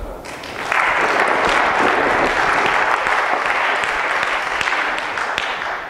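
Audience applauding at the end of a talk, swelling within the first second and fading out near the end.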